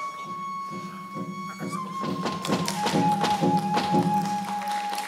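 Okinawan traditional instrumental accompaniment: a bamboo flute holds one long note that steps down to a lower pitch about halfway through, over a run of evenly repeated plucked string notes.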